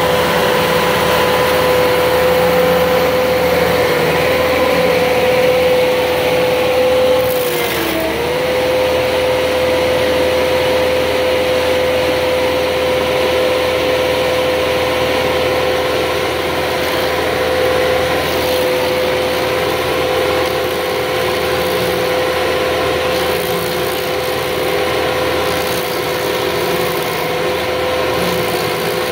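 Morbark MXD86 track stump grinder running on its Perkins 97 hp diesel engine as the cutter wheel grinds a live oak stump: a steady tone over a dense grinding noise. About eight seconds in, the pitch sags briefly under load and then recovers.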